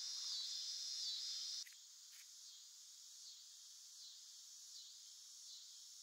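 Steady high-pitched insect chorus, pulsing a little more than once a second. It drops suddenly to a quieter level about a second and a half in.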